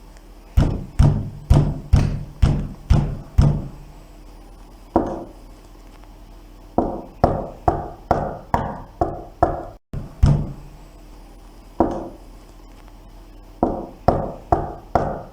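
Knocking and banging on a door in several bursts: first a run of about seven heavy, thudding bangs, about two a second, then single knocks and quicker runs of lighter, sharper raps, with short pauses between the bursts.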